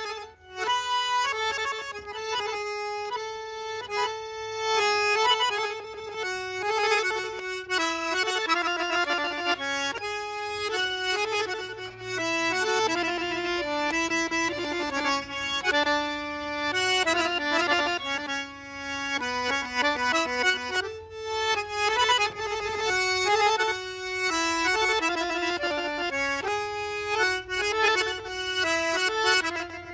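Accordion playing a lively melody of quickly changing notes.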